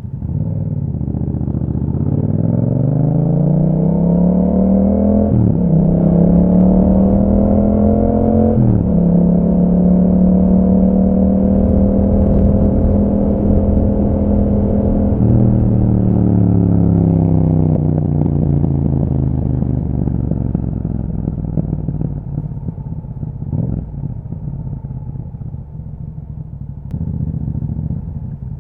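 A Yamaha MT-07's parallel-twin engine through an Akrapovic exhaust, accelerating hard with two quick upshifts about five and nine seconds in. It then holds a steady pitch at speed, and after about fifteen seconds it eases off and the pitch falls steadily as the bike slows.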